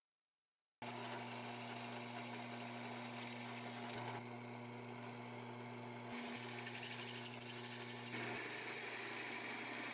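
Drill press starts about a second in and runs with a steady motor hum, its bit cutting into a thin metal disc, the cutting noise shifting a few times as the bit feeds through.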